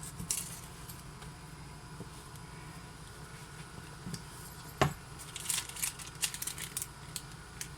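Small drone accessories being handled and fitted into a carrying case. Against a quiet background there is one sharp knock a little past halfway, then a short flurry of light clicks and rustles.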